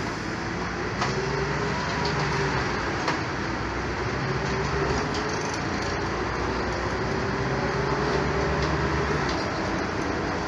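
Ride noise inside a moving bus: a steady rumble of engine and road, a low hum that fades and returns, and a few small rattles.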